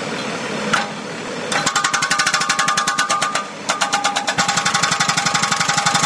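A small engine running with a fast, even knock, about a dozen beats a second, starting about a second and a half in; it drops out briefly past the middle and picks up again. Before it starts there is a steady rushing noise with a single knock.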